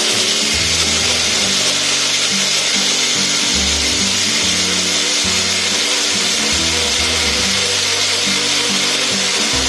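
Indian mixer grinder (mixie) running steadily at speed, grinding coriander seeds, cumin and the other rasam spices into a coarse paste. Background music plays underneath.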